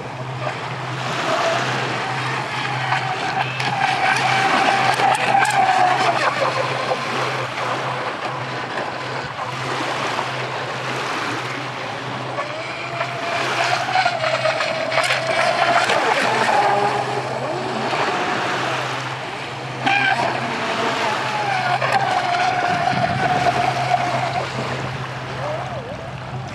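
Brushless electric RC boat motor, driven by an Eachine SS 200A ESC, whining as the boat runs across choppy water. The whine rises and falls in pitch with the throttle in three long surges, over a steady hiss of wind and waves.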